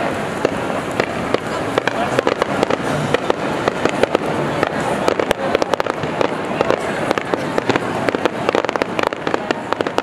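Show pyrotechnics crackling: a dense, rapid run of sharp pops and crackles over a steady background din.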